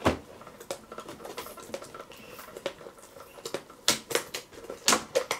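Cardboard toy box with a plastic window being handled and pried open by hand: a run of small clicks, taps and scrapes, with a few sharper knocks at the start and about four and five seconds in.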